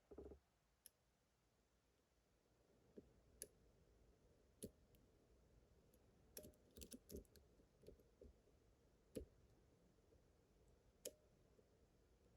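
Faint, scattered small clicks, with a short flurry in the middle: a lock pick working the pins of a pin-tumbler lock under tension during single-pin picking.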